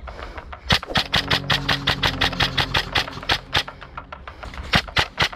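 Airsoft electric gun firing full-auto: a long burst of rapid, evenly spaced shots starting about a second in, then a shorter burst near the end, with the gun's motor and gearbox humming under the shots.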